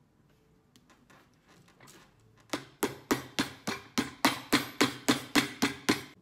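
Cobbler's hammer tapping a black sole sheet down onto a cowboy boot's sole: light handling sounds at first, then about two and a half seconds in a quick, even run of sharp blows, about four a second, growing louder.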